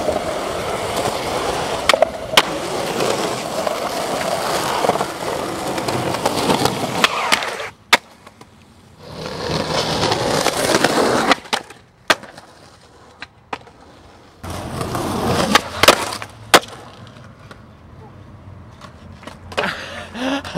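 Skateboard wheels rolling on concrete, broken by sharp clacks of the board hitting the ground. Several short runs follow one after another with sudden drops to quiet between them, and the last few seconds are quieter.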